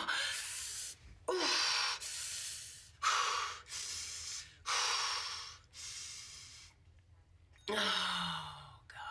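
A woman breathing hard in a run of about eight sharp, gasping breaths, roughly one a second, as she acts out a sudden labor contraction. After a short pause, one more breath near the end carries a falling groan.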